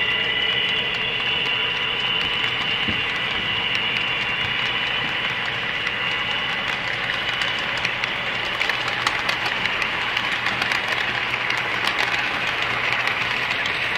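HO scale model passenger cars rolling past on the track, their metal wheels clicking over the rail joints, with a steady high whine underneath. The clicking grows busier in the second half.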